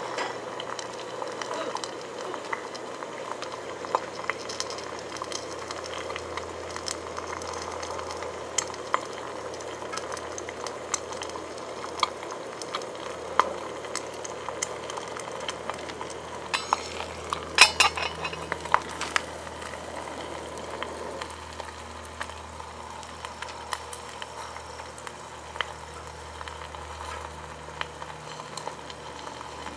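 Bacon and egg frying under a stainless steel lid in a small cast iron skillet: steady sizzling with scattered crackles and pops. There is a louder cluster of pops a little past halfway, and the sizzle is quieter over the last third.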